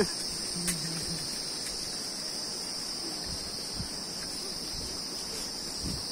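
A chorus of insects droning steadily at a high, even pitch, with a faint voice briefly about a second in.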